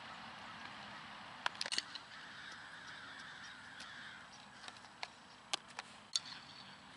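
A softball smacking into a leather fielding glove: a few short sharp pops, a cluster about a second and a half in and two more near the end, over faint outdoor hiss.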